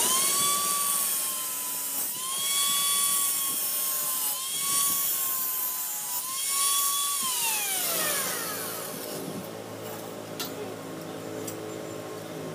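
A handheld electric power tool's motor whines at high speed, dipping briefly in pitch three times. About seven seconds in it is switched off and winds down with a falling whine, leaving a faint low hum.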